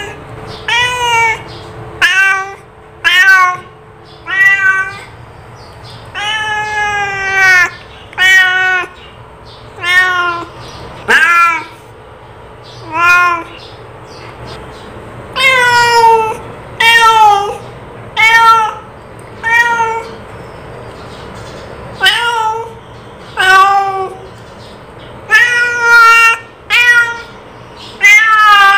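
A cat meowing over and over: about eighteen separate calling meows at irregular gaps, most short and falling in pitch at the end, with one longer drawn-out meow about seven seconds in.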